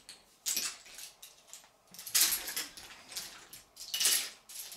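Wooden toy train track pieces and small plastic toy cars clattering as they are handled and pushed aside, in a few separate bursts about half a second, two seconds and four seconds in, the one near two seconds the loudest.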